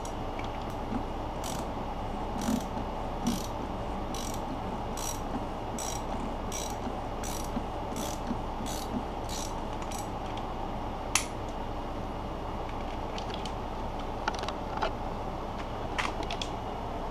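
Hand ratchet clicking as a socket on a long extension unscrews the oil filter housing cap of a BMW B46 engine. The clicks come about two a second at first, then thin out to a few scattered ones after about ten seconds, over a steady low hum.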